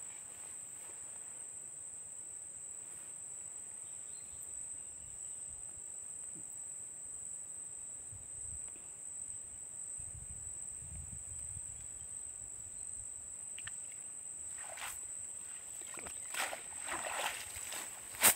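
Steady high-pitched chirring of insects throughout, with a wet nylon cast net being pulled from the water and handled near the end: short rustles and splashes, then a sharp knock just before the end as the net with its sinker chain comes down on the grass.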